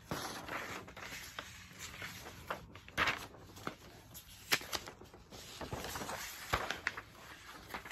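Thin paper posters rustling and crinkling as they are unfolded and handled, with a few sharper crackles of the paper, the loudest about three, four and a half and six and a half seconds in.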